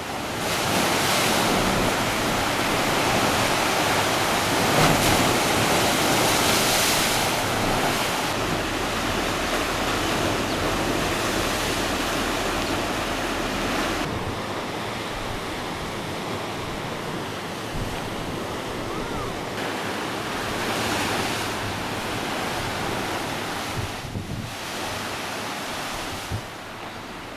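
Ocean surf breaking and washing over rocks at the foot of sandstone sea cliffs: a loud, steady rushing that surges and eases, dropping abruptly to a lower level about halfway through.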